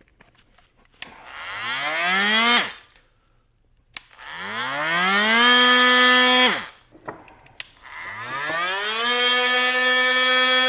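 Milwaukee oscillating multi-tool with 120-grit sandpaper, sanding the broken handle of a ceramic bowl. It is switched on three times, and each time its buzz rises in pitch as the motor spins up. The first two runs stop after a second or two; the third settles to a steady pitch and keeps running.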